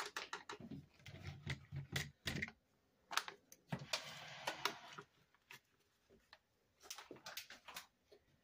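A paper seasoning-mix packet crinkling and tapping as dry seasoning mix is shaken out of it into a slow cooker, in quick runs of small ticks. About four seconds in there is a soft hiss of the powder pouring.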